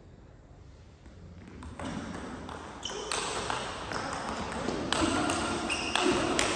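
Table tennis rally: the ball clicks sharply off the rackets and the table in quick alternation, about two hits a second, starting about two seconds in after a short hush.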